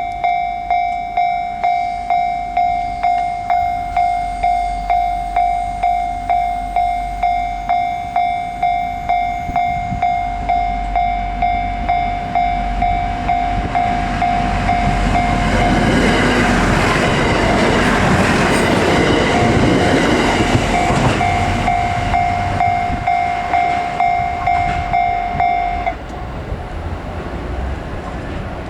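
Japanese level-crossing warning bell ringing in a steady repeating ding, about one and a half strikes a second. From about halfway a KiYa E193 'East i-D' diesel track-inspection train passes over the crossing, its wheel noise rising loud with clattering over the rails, and the bell stops near the end.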